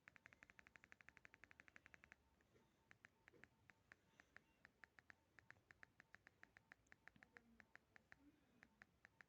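Nokia 1616 phone keypad ticking faintly as its menu is scrolled. A fast even run of about ten ticks a second lasts about two seconds, then single ticks follow at an uneven pace.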